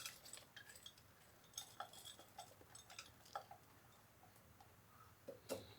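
Near silence with a few faint, scattered light clicks and clinks, typical of kitchen handling.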